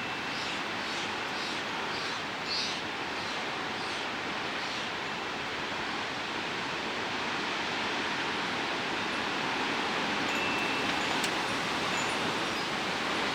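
Storm wind rushing steadily through trees with rustling leaves, growing a little stronger in the second half. Over the first few seconds a bird gives a quick series of about ten short calls.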